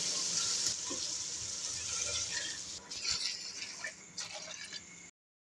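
Beef stock poured from a bowl into a pot of beef and chickpeas frying in oil: a hissing sizzle at first, then pouring and splashing liquid that grows weaker toward the end.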